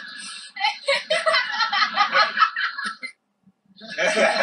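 Several people laughing together. The sound cuts out for about half a second a little after three seconds in, then the laughter picks up again.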